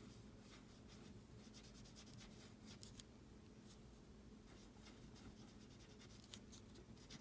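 Faint scratching of a drawing tool on paper in short, irregular strokes, over a low steady room hum.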